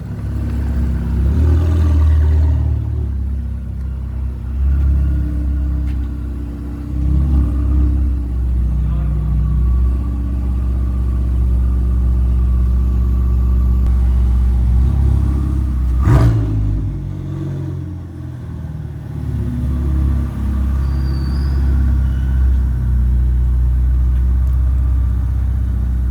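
Ferrari 488 Pista's twin-turbo V8 running at low revs, its pitch rising and falling a little now and then, with a single sharp crack about sixteen seconds in.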